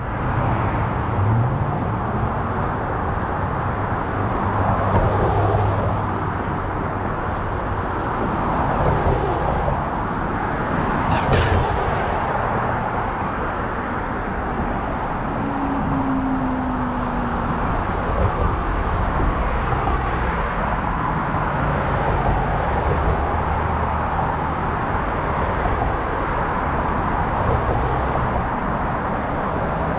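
Steady road traffic noise as cars pass along the road, with one sharp click about eleven seconds in.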